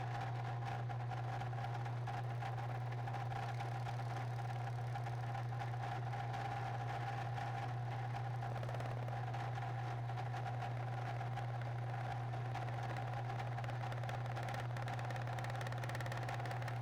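A shop machine's motor running steadily, a constant low hum with a steadier, higher tone above it that never changes in level.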